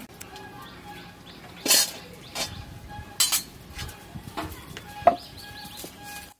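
A metal wok knocking and clanking a few times as it is handled and set on a wood-fired clay stove; the last knock rings briefly.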